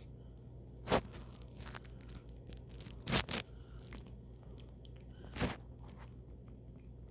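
Baby hiccupping: three short, sharp hiccups about two seconds apart, the middle one a quick double.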